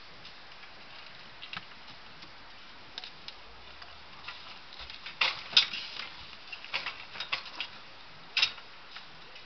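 Irregular sharp clicks and knocks from a one-man hand-lever lifting tool and the wooden platform it is raising, as the lever is worked and one end of the platform tips up. The loudest knocks come in a quick cluster about five seconds in, with more scattered ones after.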